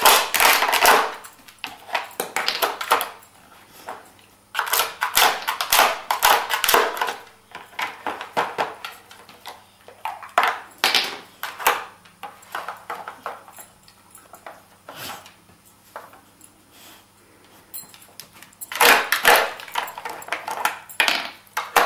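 Dog nosing and pawing at a plastic Nina Ottosson Dog Casino puzzle toy: its drawers and bone-shaped pegs clatter and knock in spells of rapid clicking, about four spells with scattered single clicks and quieter gaps between.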